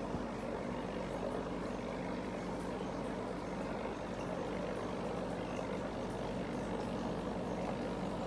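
Steady hum of an aquarium air pump driving a sponge filter, with the air bubbling up through the water.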